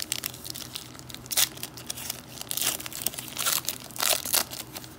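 Clear plastic cello wrapper of a pack of trading cards crinkling and tearing as it is pulled open by hand, in irregular crackles, loudest about a second and a half in and again near the end.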